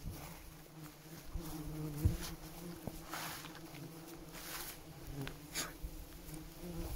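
Flying insects buzzing close by, a steady low hum that wavers slightly in pitch, with a few faint clicks and rustles.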